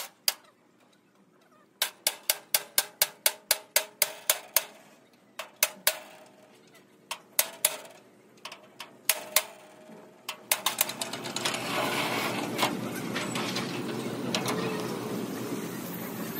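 Hammer blows on metal, in quick runs of about five strikes a second, each with a short metallic ring. About ten seconds in, a steady hissing noise takes over.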